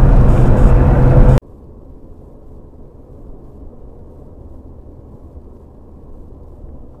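Loud vehicle road and engine noise that cuts off abruptly about a second and a half in, followed by a much quieter, muffled low rumble of a vehicle driving.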